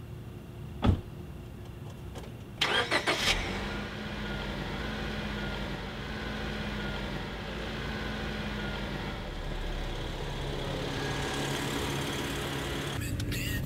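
A car engine is cranked and catches about three seconds in, then idles steadily. A single sharp knock comes about a second in.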